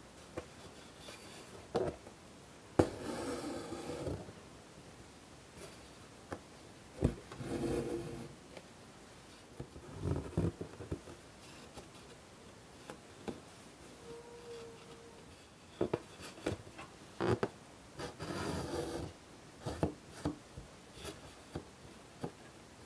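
Embroidery needle pricking through taut linen with sharp little ticks, and thread drawn through the cloth in about four longer rubbing pulls.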